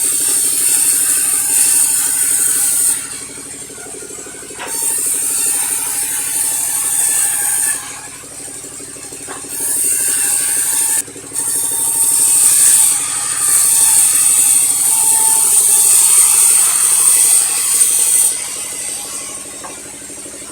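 Sawmill saw cutting through a log in repeated stretches, a loud high hiss that starts and stops several times over a steady low machine hum.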